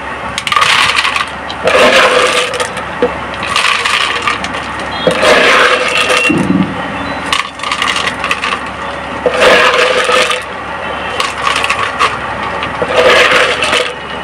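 LECA expanded clay pebbles clattering as handfuls are scooped from a tub and dropped into a clear plastic container, in about six rattling bursts a second or two apart.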